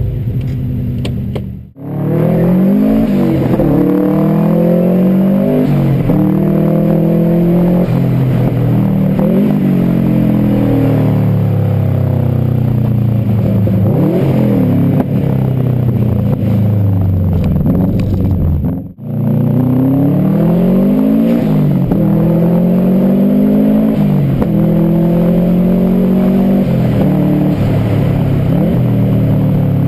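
Subaru Impreza WRX GC8's turbocharged flat-four boxer engine being revved in repeated blips: each time the revs rise quickly and then fall back slowly. The sound drops out briefly twice, about two seconds in and just before the middle.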